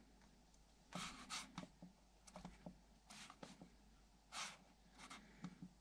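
Near silence, with a few faint soft clicks and short rustling sounds from buttons being pressed on a Generac Evolution standby generator's controller keypad.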